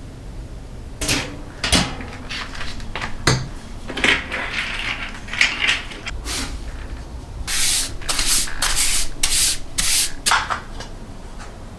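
Hand rubbing or scrubbing a surface in quick strokes, about two a second in the second half, with a few short knocks in between.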